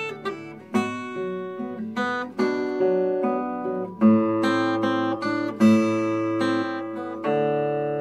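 Acoustic guitar played fingerstyle: a run of plucked melody notes over ringing bass notes, with louder chords struck about four and five and a half seconds in.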